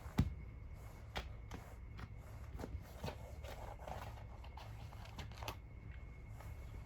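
Cats pawing and scratching at a carpet, irregular short rustles and soft thumps as they pounce at something moving underneath it. The sharpest thump comes just after the start.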